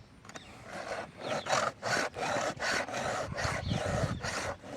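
Round file rasping across a chainsaw chain's cutter in quick back-and-forth strokes, starting about a second in. The cutter being filed has a small spur on it, which can be heard in the filing.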